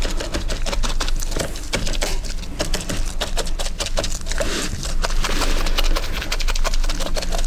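Paintbrush stippling polyester resin into chopped strand fibreglass mat in a mould: a rapid, irregular run of dabbing taps as the mat is wetted out.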